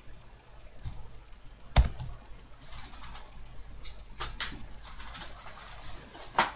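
Scattered clicks from a computer mouse and keyboard at a desk, a few at a time, with two sharper knocks, one about two seconds in and one near the end.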